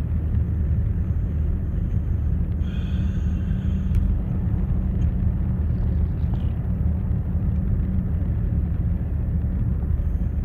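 Steady low rumble of a car's road and engine noise heard from inside the cabin while cruising on a motorway.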